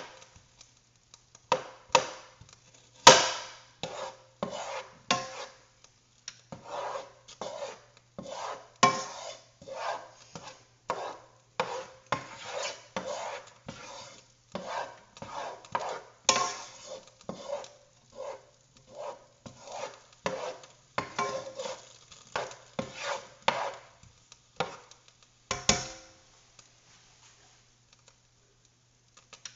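Kitchen knife chopping onion on a cutting board: a long run of quick, uneven strokes that stops near the end.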